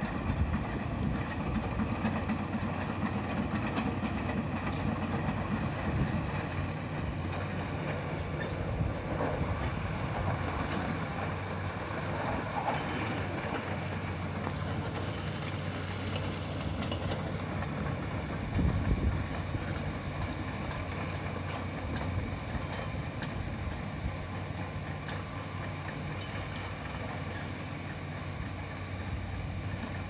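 Distant Fiat Kobelco EX355 excavator's diesel engine running steadily as it works, over the hiss of flowing river water, with one brief knock about two-thirds of the way through.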